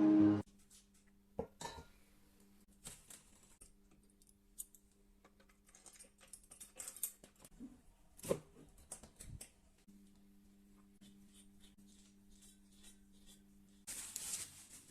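Scattered light clicks and clinks of small metal parts being handled and set down on a workbench, with a short scraping noise near the end. A faint steady hum runs underneath.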